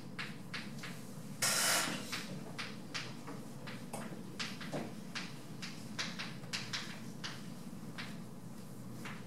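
Chalk tapping and scratching on a chalkboard as equations are written: a string of short, sharp ticks, with one longer, louder scrape about a second and a half in, over a steady low room hum.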